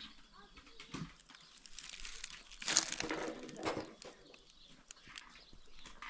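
A farm animal calling briefly about three seconds in, over scattered faint clicks and scrapes.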